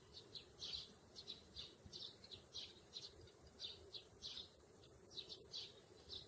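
A flock of sparrows chirping: a quick, irregular string of short, high chirps, about three a second, some overlapping from several birds.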